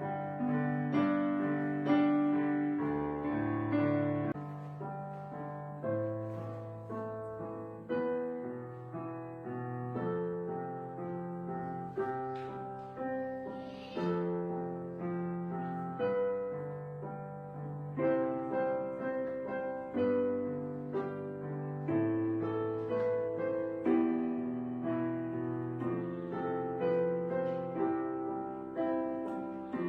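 Background piano music: chords and melody notes, each struck and left to fade, at an unhurried pace.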